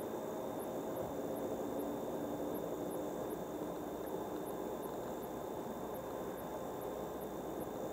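Steady road and tyre noise of a moving car, with a faint thin whine held high above it and faint, evenly spaced high ticks a little over twice a second.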